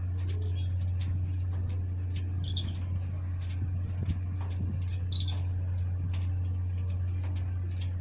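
A steady low mechanical hum, with a short high chirp about every two and a half seconds and scattered faint clicks.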